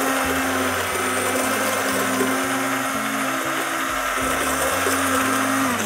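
Electric immersion (stick) blender running steadily in a tall plastic jug, puréeing a pepper and cherry-tomato sauce into a cream.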